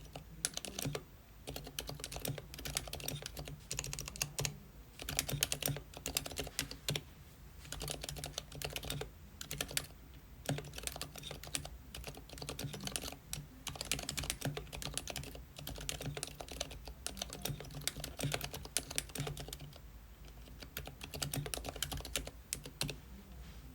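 Mechanical keyboard with Gateron Silent Brown switches, lubed with a Krytox 205g0 and 106 mix and filmed, being typed on: quick runs of keystrokes broken by short pauses.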